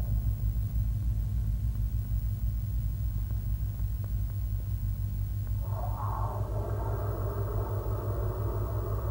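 Synthetic electronic soundtrack: a steady, rapidly fluttering low rumble, joined a little past halfway by a cluster of steady higher tones.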